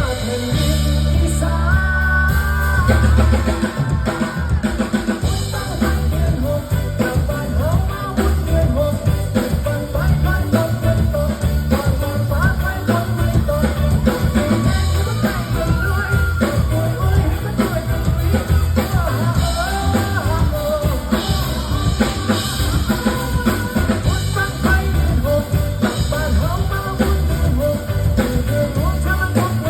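A band playing a rock-style song on drum kit and bass, with a singing voice over it.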